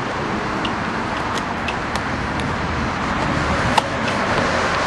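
Steady rushing outdoor background noise, with a few faint light clicks.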